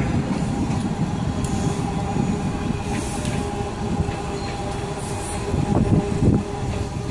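Washington Metro train running at the station, a steady low rumble with a faint steady hum over it.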